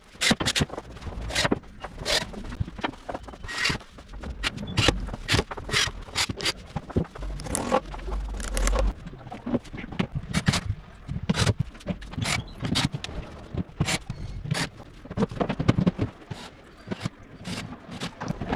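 Woodworking on MDF panels: a run of irregular sharp knocks and taps mixed with scraping, many strokes every second.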